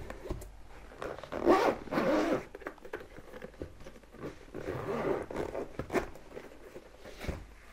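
Zipper of a fabric-covered hard-shell carrying case being pulled open along its edge, in two main rasping pulls, one a second and a half in and one about halfway through, with light handling clicks between.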